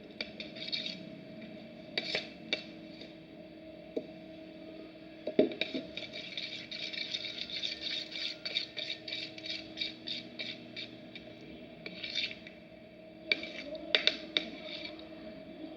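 Clear-glue slime being stirred in a tray just after the activator goes in: repeated short scrapes and taps of the stirrer, busiest in the middle, over a faint steady hum.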